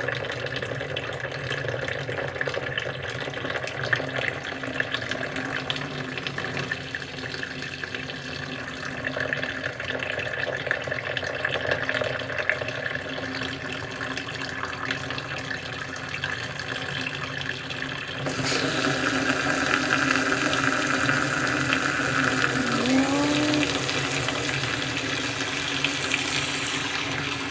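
Water pouring and rushing steadily as it floods a cabin bedroom. About 18 seconds in, the rush becomes suddenly louder and brighter, and a short rising tone is heard around 23 seconds in.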